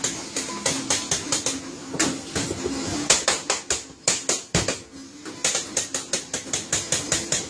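Quick, rhythmic slaps of bread dough pieces on a stainless steel table as bakers divide and round dough by hand, about five a second, thinning out briefly around the middle.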